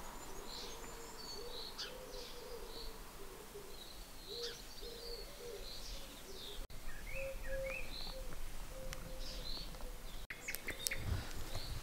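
Outdoor birdsong: small birds chirping here and there, over a low call repeated in short phrases.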